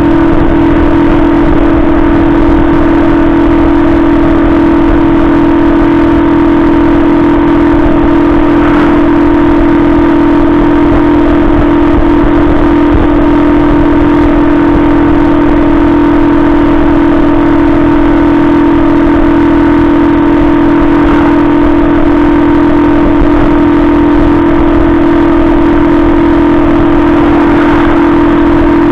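Benzer Yankee 50cc moped's 139FMB single-cylinder four-stroke engine running at a steady cruise, holding one unchanging drone. A rushing noise of wind and road lies under it.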